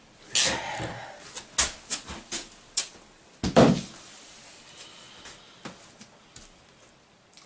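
A run of sharp knocks and clicks, about half a dozen over the first four seconds, the loudest a heavier knock about halfway through, then only faint ticks.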